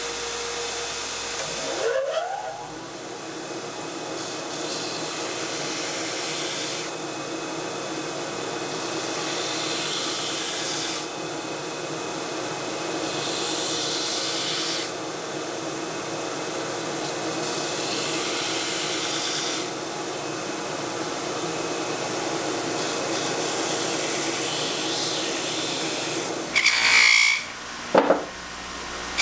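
Belt grinder with a 120-grit belt running as an axe bit is ground on it to sharpen the edge. The grinding hiss swells and fades every few seconds as the blade is pressed on and lifted off. Near the end come a few short, louder passes on a spinning buffing wheel.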